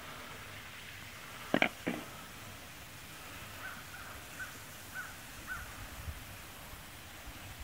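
A crow cawing twice in quick succession, about a second and a half in.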